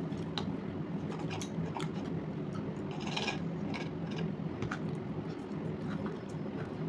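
A fork clicking and scraping on a plate while someone eats and chews, with scattered small taps and a brief louder scrape about three seconds in, over a steady low hum.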